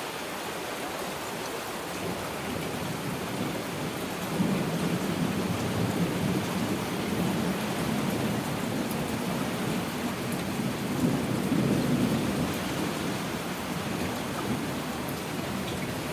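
Steady heavy rain, with a long low roll of thunder that builds about four seconds in, rumbles for around eight seconds and then fades.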